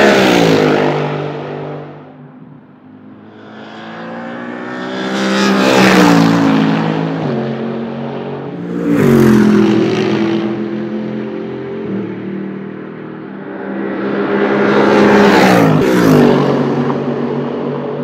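Mercedes SLS AMG GT3 race car's naturally aspirated V8 at speed, passing close four times. Each pass swells to a peak and then drops in pitch as the car goes by, with the engine still heard more faintly between passes.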